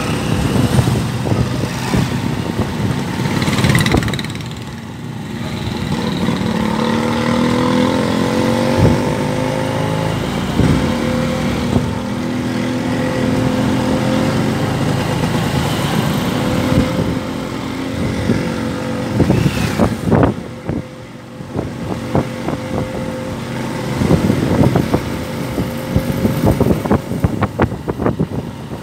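Motorcycle engine of a motorcycle-and-sidecar tricycle running underway, its pitch rising as it accelerates about five seconds in and then holding steady. Sharp knocks and rattles come around twenty seconds in and again near the end.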